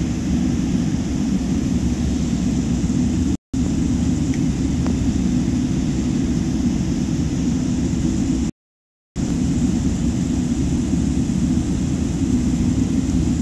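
Steady low rumble of airliner cabin noise while taxiing: the jet engines at low taxi power and the air-conditioning. The sound drops out to complete silence twice, once briefly about three seconds in and again for about half a second near the middle.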